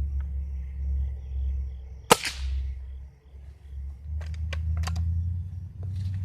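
A single air rifle shot about two seconds in, a sharp crack with a short ring-off, followed by a few sharp clicks a couple of seconds later, over a steady low rumble.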